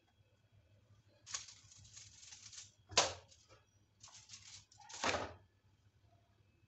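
Aluminium foil rustling and crinkling in several bursts as it is handled, the loudest and sharpest crackle about three seconds in and another about five seconds in.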